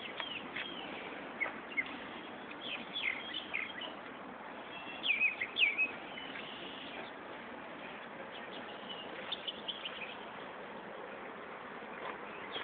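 Birds chirping: scattered groups of short, high, sliding calls, the loudest cluster about five seconds in, over a steady faint outdoor hiss.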